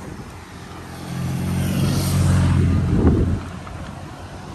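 A car driving past on the adjacent road: engine hum and tyre noise swell over about two seconds, then fade.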